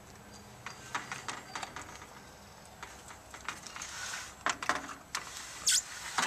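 Irregular light clicks and taps, a few louder ones in the second half, with a soft rustle about four seconds in.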